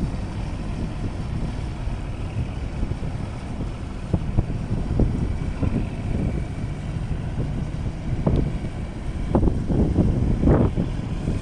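Wind buffeting the microphone over a low steady rumble, with a few short louder bursts in the last few seconds.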